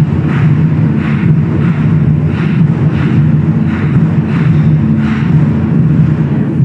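A 24 Festive Drums ensemble of Chinese drums playing together in a dense, steady rumble, with sharper accented strikes about three times every two seconds.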